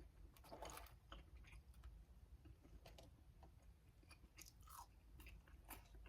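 Faint close-up chewing: a person eating fast food, with scattered soft wet mouth clicks and light crunches.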